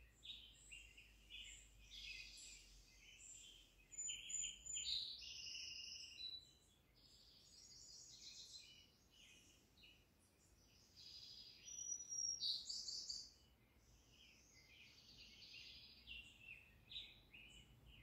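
Faint woodland birdsong: many short chirps and twittering calls, louder in clusters about four seconds in and again around twelve seconds.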